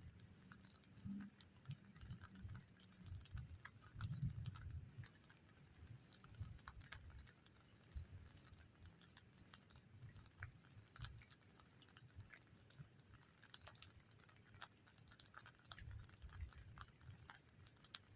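Faint, irregular pattering of raindrops, scattered light ticks, with low dull thumps from the microphone being handled or buffeted, loudest about four seconds in.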